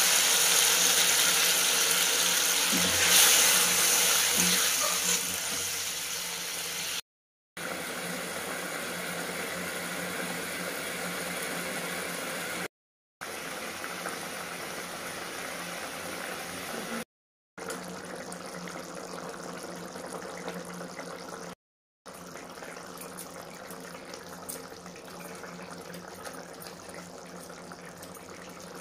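Water poured into a spiced raw-banana curry in a hot kadai, a loud rushing splash for the first few seconds. Then the thin gravy bubbling at a boil, steadily quieter, broken by several brief silent cuts.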